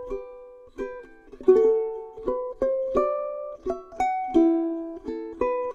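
Background music on ukulele: single plucked notes and chords, each ringing briefly and fading, at about two notes a second.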